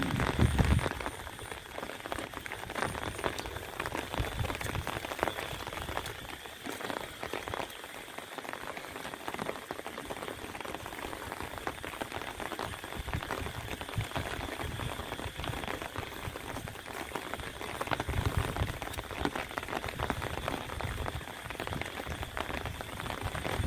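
Steady rain falling, a dense, even hiss of many small drops striking.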